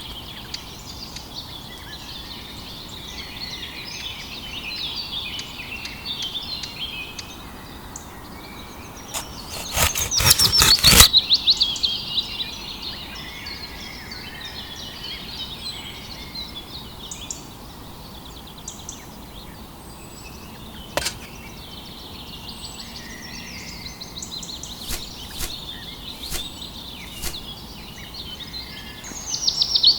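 Many small birds chirping and twittering. There is a louder burst of rapid clicking about nine to eleven seconds in, and a few single sharp clicks later.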